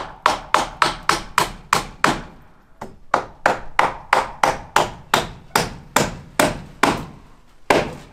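Hammer nailing wooden siding boards: a quick, even run of blows, about three to four a second, with a short pause after about two seconds and a last blow near the end.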